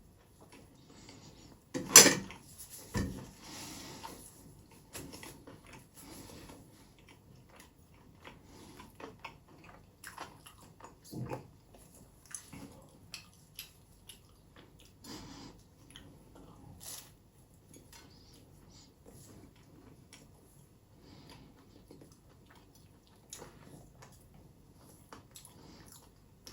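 Close-miked eating and food-handling sounds: scattered small clicks and crunches with chewing, a loud sharp knock about two seconds in and another clear one around eleven seconds in.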